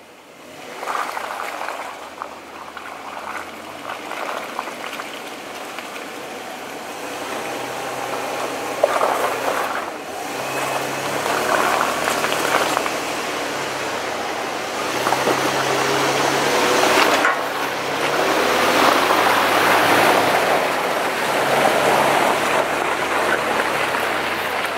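Toyota 80 Series Land Cruiser's straight-six engine pulling slowly up a rough trail, its note shifting up and down, while the tyres crunch over dirt, mud and snow. It grows louder as the truck comes up close and passes.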